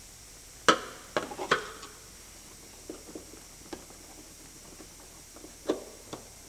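Sharp clicks and taps of a bonnet gas strut's end fitting and retaining clip being handled and pushed into its mount on a Porsche Boxster 986: three loud clicks about a second in, lighter ticks through the middle, and two more clicks near the end.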